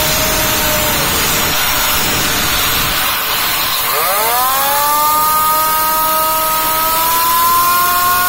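Compressed air from a blow gun hissing into a turbocharger's compressor inlet and spinning the compressor wheel. A whine fades out in the first second. About four seconds in, a high whine sweeps up sharply as the wheel spools up, then keeps rising slowly over the steady hiss of the air.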